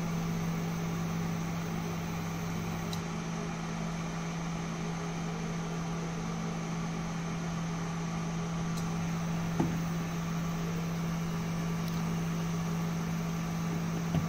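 Maxo induction cooktop running, a steady low hum from its coil and cooling fan while it heats a kadhai, with a faint tick or two.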